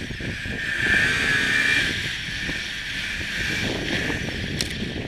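Turbocharged Yamaha Sidewinder B-TX snowmobile engine running hard under load as the sled climbs a hill in deep powder, with wind noise on the microphone.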